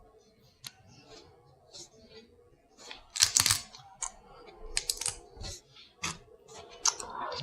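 Seafood shells cracking and snapping while eating a boil of crab and lobster, a run of sharp irregular clicks and crackles, loudest in a cluster about three seconds in and again around five seconds.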